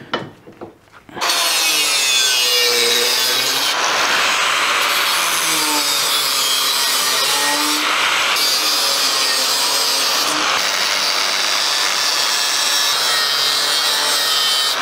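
Handheld angle grinder with a cutting disc, switched on about a second in and cutting through a steel exhaust downpipe clamped in a vise: a steady loud grinding hiss with the motor's whine wavering as the disc bites.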